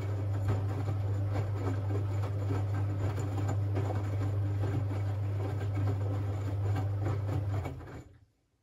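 Siemens Siwamat 6143 washing machine running a boil-wash cycle: a steady low hum under an irregular sloshing and churning of water and laundry. It all stops abruptly about eight seconds in.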